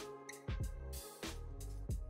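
Background music with a steady beat: a drum hit about every two-thirds of a second over bass notes and held tones.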